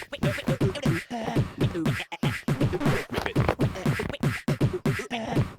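Fast beatbox-style music: quick vocal-like sounds that each drop in pitch, several a second, over a clicking beat.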